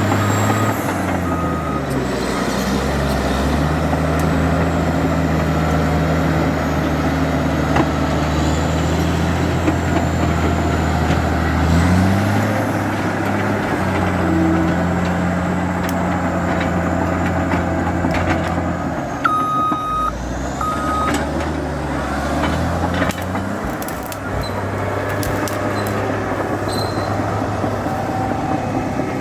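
Caterpillar D8 bulldozer's diesel engine running under load, its pitch dropping and rising as it works. A reversing alarm beeps twice about twenty seconds in, and a few knocks sound near the end.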